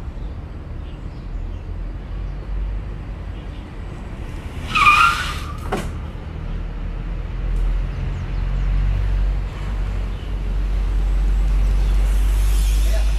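Low-speed electric sightseeing car under a hard-braking test: a short tyre squeal about five seconds in as it brakes, followed by a click. Under this runs a steady low rumble of tyres on pavement, which grows louder over the last few seconds as the car rolls up close.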